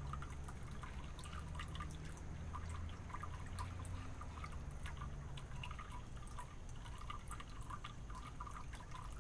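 Faint outdoor background: scattered soft, drip-like ticks over a low hum that fades about halfway through.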